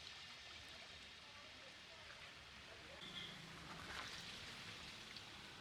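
Faint sizzling and crackling of banana fritters deep-frying in hot oil.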